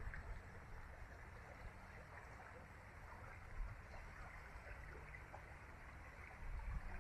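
Shallow freestone river trickling faintly over cobbles. Under it runs a low rumble of wind on the microphone, which grows louder near the end.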